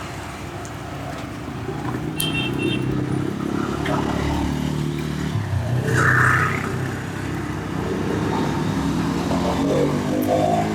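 Street traffic: car and motorcycle engines running past, their pitch rising and falling, with a brief high beeping about two seconds in and a louder burst about six seconds in.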